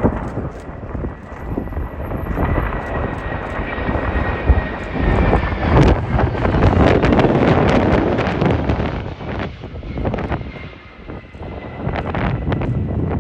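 KC-767 tanker's jet engines passing overhead: the engine noise swells to a peak about halfway through and then fades, with a thin high whine that drops slightly in pitch as it goes by. Gusty wind buffets the microphone throughout.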